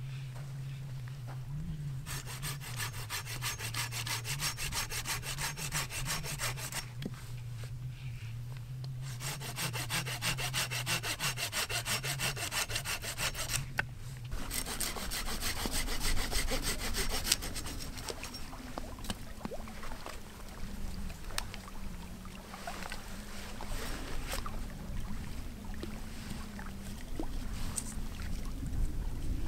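Small hand saw cutting through a dead branch for firewood: steady back-and-forth strokes of the teeth rasping through dry wood, in two long spells with a short pause between, then in shorter spells after about halfway.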